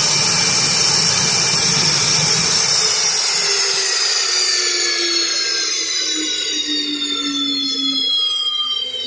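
F/A-18 Hornet jet engines spooling down on the ramp after shutdown: the steady roar drops away about three seconds in, leaving a whine that slowly falls in pitch.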